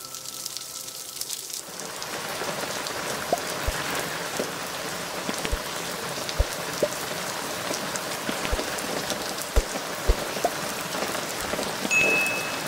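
Heavy rain pattering into a puddle and onto wet ground, a steady hiss with scattered louder drops plopping into the water. Faint music fades out in the first second or two, and a brief high electronic tone sounds near the end.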